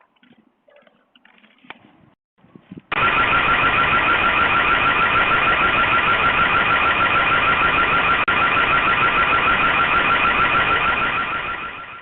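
Security alarm siren, heard through a security camera's microphone, starting abruptly about three seconds in with a loud, rapidly pulsing tone. It holds steady and fades away near the end.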